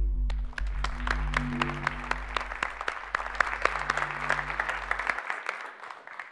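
An audience applauding as a film's closing soundtrack music, with sustained low notes, fades and stops about five seconds in. The clapping thins out toward the end.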